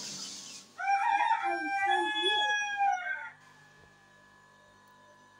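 A rooster crowing once, a single call of about two and a half seconds, starting about a second in. Before it, a steady hiss cuts off.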